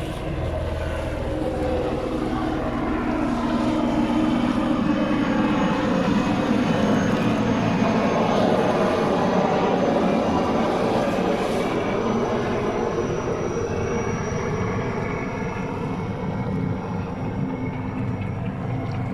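A steady engine drone, growing louder through the middle and easing off toward the end.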